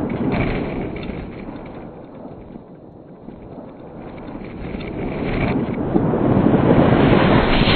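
Wind buffeting the microphone, a loud rumbling rush that eases off over the first few seconds and builds again near the end.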